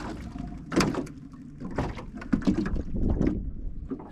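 Knocks and scraping of gear against a small fishing boat: a few sharp knocks with rubbing noises between.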